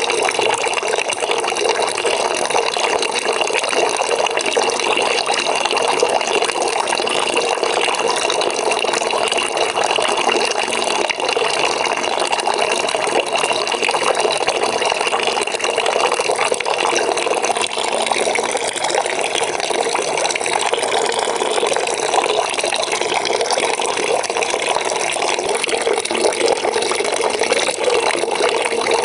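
Water pouring steadily into a bucket as it fills, a continuous even splashing rush.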